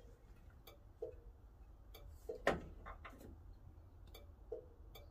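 Corvair turn-signal flasher clicking on and off with the blinker running, each click short with a brief ring, and one louder click about halfway through.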